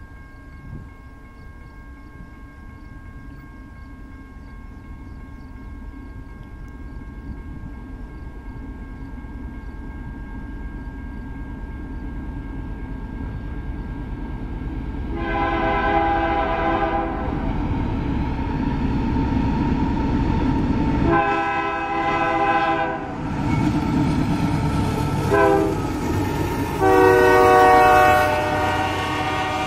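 Approaching freight train led by a Union Pacific GE AC44CWCTE diesel locomotive: the low rumble of the locomotives grows steadily louder. About halfway through, the lead unit's multi-chime air horn sounds the grade-crossing signal, long, long, short, long, as the locomotives come by close near the end.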